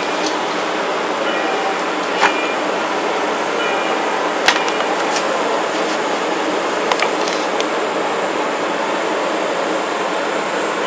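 A steady rushing noise with a few sharp clicks or taps scattered through it.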